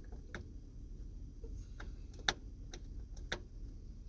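A handful of irregular sharp clicks, the loudest a little past halfway, over a low steady rumble: radio controls being switched and pressed while a mobile screwdriver antenna is tuned.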